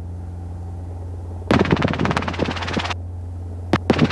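Robinson R22 helicopter air-taxiing low, heard as a steady low drone. About a second and a half in comes a rough, rattling burst lasting about a second and a half, and two short sharp noises come near the end.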